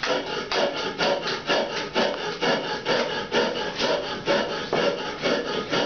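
Rhythmic rasping rubbing strokes of hand grinding, about three a second, keeping an even pace.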